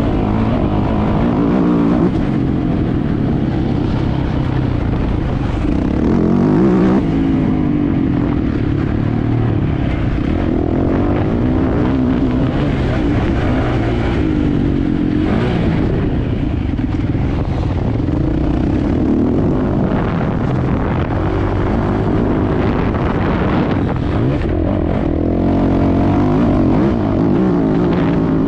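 Yamaha YZ450F's single-cylinder four-stroke engine heard on board, ridden hard around a motocross track: the revs rise and fall again and again as the rider accelerates and backs off.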